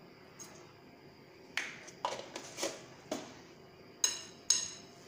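A metal spoon stirring black sesame seeds into a bowl of batter, clinking against the side of the bowl about seven times from a second and a half in. The last two clinks are the sharpest and ring briefly.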